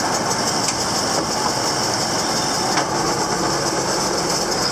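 Tractor-driven Krone baler running steadily: engine noise under a fast, even mechanical clatter from the baler's moving parts, with a couple of sharp clicks.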